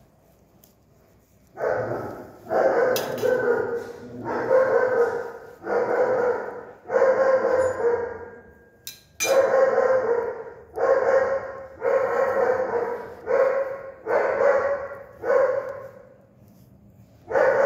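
A dog barking and crying in long, drawn-out calls, about a dozen in a row at a steady pitch, starting about a second and a half in and breaking off briefly near the end.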